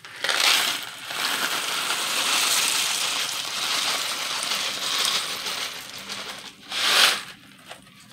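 Dry elbow macaroni being poured into a pot of boiling water, the pieces hitting the water steadily for about six seconds, then one short louder burst about seven seconds in.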